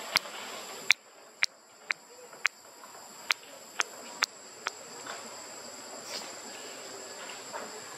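Steady, high-pitched insect song in the background, with a run of about nine sharp clicks over the first five seconds or so.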